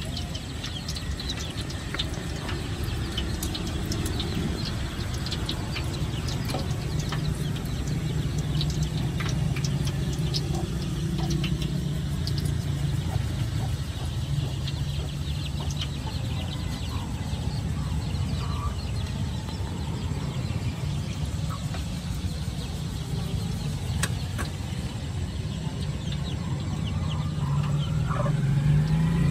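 Dumplings deep-frying in a wok of hot oil, with scattered pops and crackles over a steady low hum; the hum grows louder and rises near the end.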